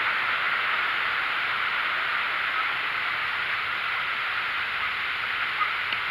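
Steady, even rushing noise of a mountain creek flowing nearby, with no distinct events.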